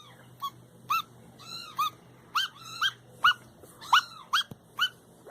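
A dog whimpering: a string of short, high-pitched whines, about two a second.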